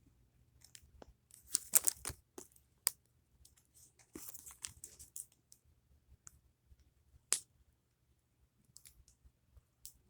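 Plastic packaging crinkling and tearing as a fidget toy is handled and unwrapped, in short scattered bursts with sharp clicks, one louder click about seven seconds in.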